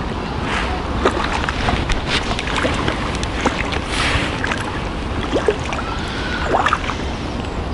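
Hooked crucian carp splashing and thrashing at the water's surface as it is played on a float rod: irregular small splashes and sharp ticks over a steady watery rush.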